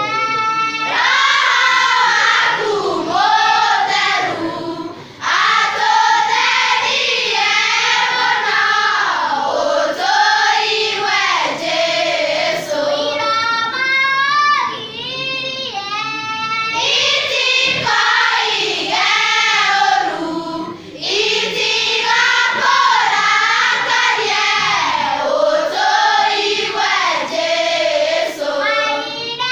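Children's choir singing a worship song, with brief pauses between phrases about five and twenty-one seconds in.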